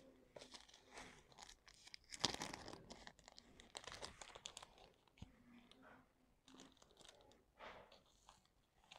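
Faint rustling and crinkling of a plastic sheet being handled, in a few short soft bursts, the loudest about two seconds in.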